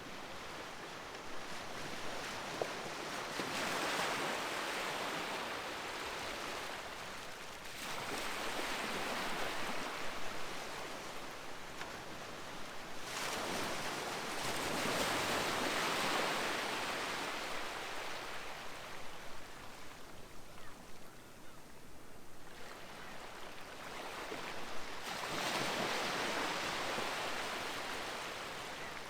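Sea waves breaking and washing up a beach, four surges a few seconds apart, each swelling to a loud hiss and then ebbing away.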